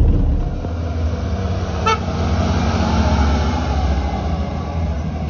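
Heavy vehicle engine running steadily on the move, with one short horn toot about two seconds in, as a fire engine passes close by.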